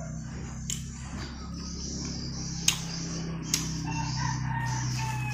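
A rooster crowing, one long falling call starting near the end, over a steady low hum. Two sharp clicks sound in the middle.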